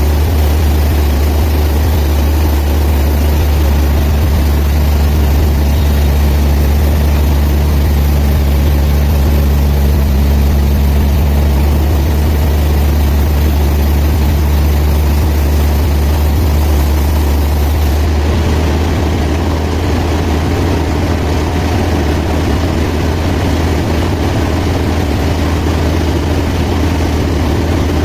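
Band sawmill running with a steady, loud low hum. About two-thirds of the way through, the sound turns a little duller and quieter.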